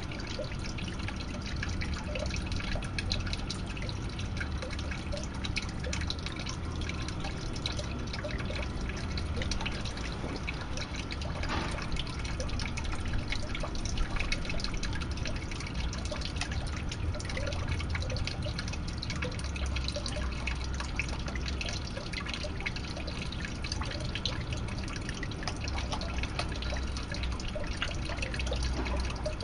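Water steadily trickling and dripping into a garden koi pond, a continuous patter of many small drops and splashes.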